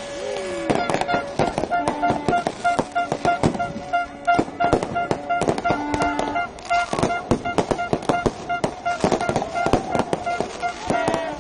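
Fireworks going off in rapid, overlapping bangs and crackles, with a few whistling shells gliding up and down in pitch. A horn-like tone pulses on and off throughout.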